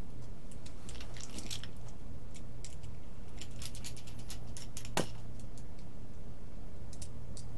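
Scattered light clicks and taps of small plastic parts being handled and fitted onto a foam RC airplane wing, with one sharper click about five seconds in, over a steady low hum.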